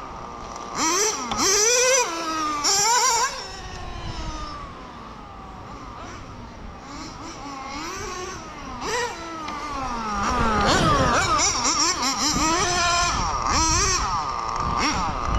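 A .12 nitro engine in a radio-controlled car revving up and down as the car runs past, its high whine sliding up and falling away in repeated glides. It is loudest about a second in, around three seconds in, and again from about ten to thirteen seconds.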